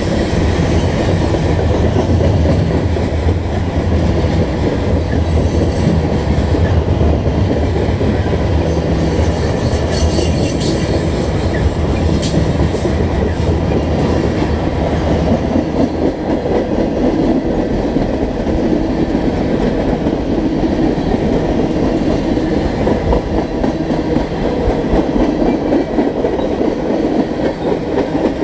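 Freight cars rolling past at close range: tank cars and covered hoppers making a loud, steady rumble of steel wheels on rail. There are a few brief high squeals and clicks around ten to twelve seconds in.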